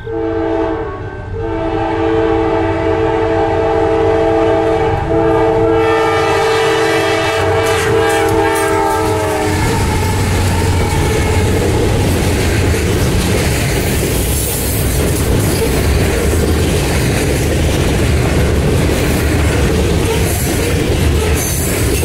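Horn of CSX AC44CWM freight locomotives: a short blast, then a long multi-note chord held about eight seconds and cut off. The locomotives and freight cars then pass with a loud steady rumble and wheels clattering over the rails.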